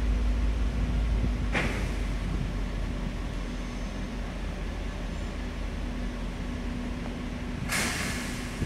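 A large diesel vehicle running with a steady low rumble that slowly gets quieter, with two short hisses: one about a second and a half in and a longer one near the end.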